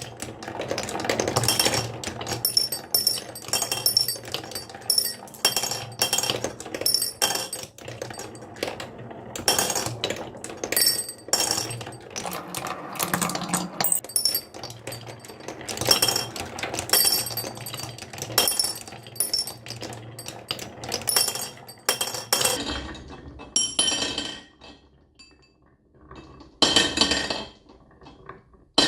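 Many marbles rolling and rattling down a wooden marble run, clicking and clinking against the track and each other in a dense stream. About three-quarters of the way through it thins out to a few scattered runs, with one more loud burst near the end.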